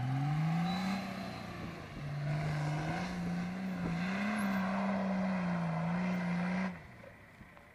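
A four-wheel drive's engine revving up and held at high revs under load as it climbs a steep sand dune, its pitch wavering a little. Near the end the engine note drops off suddenly.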